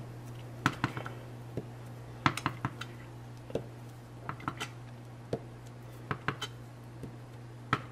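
Small wood-mounted rubber stamp being inked and pressed onto cardstock on a tabletop: a scatter of light taps and knocks at irregular intervals, some in quick clusters of two or three. A steady low hum sits underneath.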